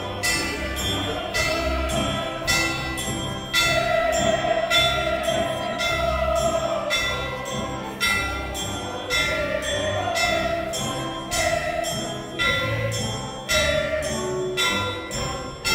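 Live orchestral or band music: sustained melodic tones over a steady beat of sharp, ringing percussion strikes, about two a second.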